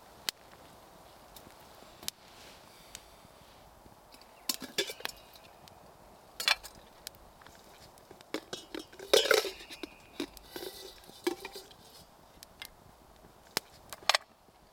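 Metal camp cookware being handled: scattered clinks and knocks of a kettle, cups and a frying pan, with the loudest cluster a little past the middle.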